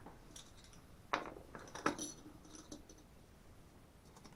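Small metal chainsaw parts and tools clinking and clicking as they are handled on the bench, with a few light knocks about a second in and again just before two seconds.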